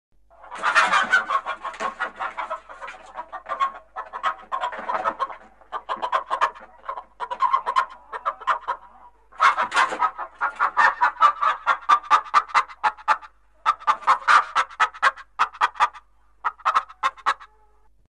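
Hens clucking in quick, dense runs, in several bouts with short breaks between them.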